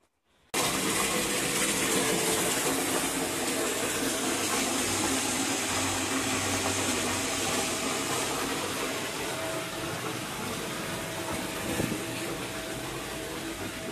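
Water running hard from a tap into a bathtub as the bath fills: a steady rushing gush that eases off slightly toward the end.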